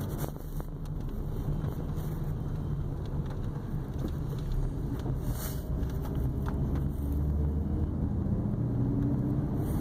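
A car driving on a wet road, heard from inside the cabin: a steady low rumble from the engine and tyres, with a few faint ticks.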